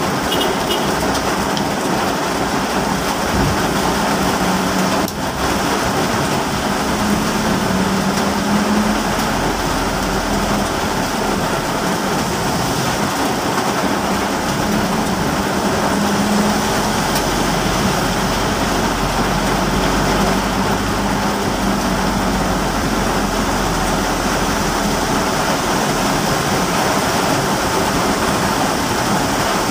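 Heavy rain pelting a moving car, heard from inside the cabin as a dense, steady hiss. A low hum from the car's engine comes and goes underneath.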